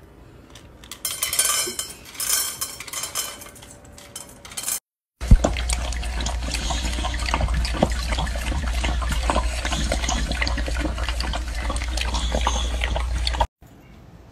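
A dog lapping milk from a stainless steel bowl: quick, irregular wet laps and splashes with the tongue knocking against the metal bowl, over a steady low hum. Before it, a few seconds of rustling.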